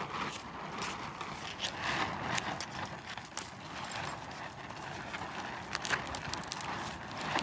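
A knife scraping and working at a singed goat head, making irregular scrapes and sharp clicks.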